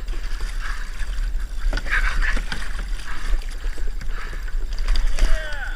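Water splashing and sloshing around a fishing kayak as a hooked mackerel is brought alongside to be tail-grabbed, with wind rumbling on the microphone.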